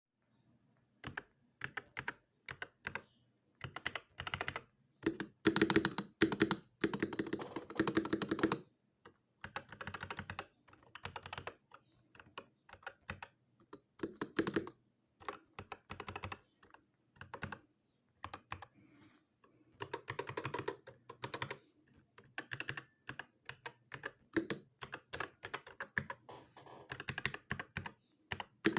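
Typing on a Dark Project Pro KD87A 87-key mechanical keyboard with stock Gateron Optical 2.0 Red linear switches and PBT keycaps: irregular bursts of keystrokes, with fast runs about five to eight seconds in and again around twenty seconds, and slower single presses between.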